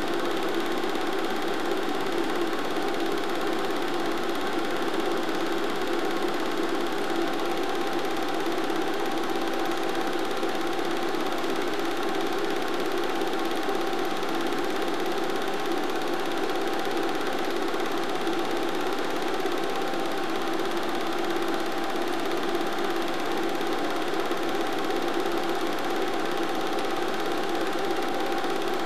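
Film projector running, a steady mechanical sound with a constant hum that does not change across the cuts in the footage.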